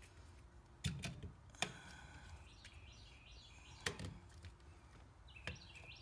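Four faint, scattered light clicks and taps as the GFCI outlet and metal cover plate are handled on the metal junction box, with faint birdsong chirping in the background.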